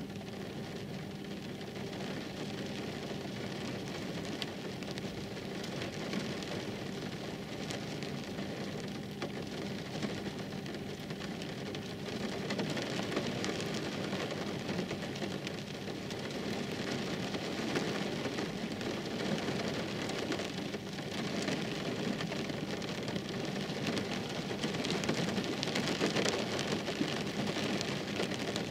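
Heavy rain falling steadily on a wet road, growing somewhat louder about halfway through and again near the end.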